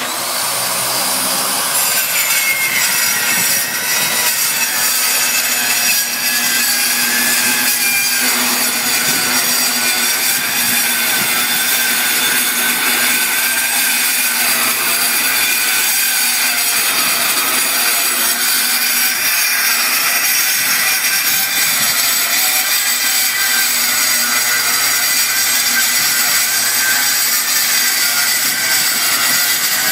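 Milwaukee 6370-21 13-amp 8-inch metal-cutting circular saw cutting metal: a loud, steady grinding whine full of high ringing tones that waver slightly, cutting in abruptly at the start and running without a break.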